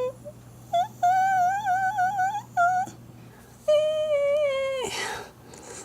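A woman's voice imitating a snore as a high-pitched whimper: a few short whimpers and a long wavering whine, then a held whine that drops off into a breathy exhale near the end.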